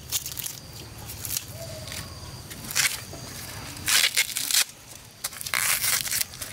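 Fresh ears of white corn being husked by hand: green husks and silk torn and stripped off in a series of short crackling tears.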